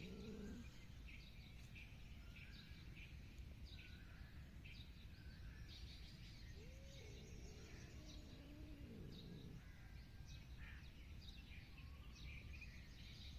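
Faint outdoor ambience: small birds chirping in short, scattered calls over a low steady background noise, with a fainter, lower wavering call around the middle.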